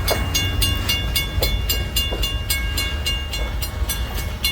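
Railroad grade-crossing bell ringing rapidly, about five strikes a second, over the low rumble of a freight train rolling through the crossing.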